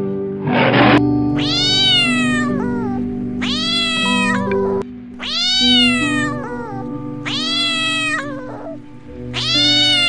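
A domestic cat meowing five times, each a long drawn-out meow about a second and a half long that rises and then falls in pitch, after a short breathy burst about a second in. Background music with steady held notes plays underneath.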